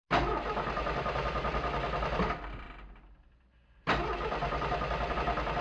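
An engine running with a fast, even low pulse; it dies away about two seconds in, then comes back in abruptly near four seconds.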